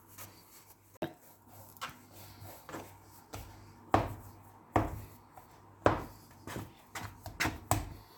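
A dough scraper chopping through a soft gnocchi dough onto a wooden board, about six sharp knocks in the second half. Before that, faint rubbing and patting of hands working the dough.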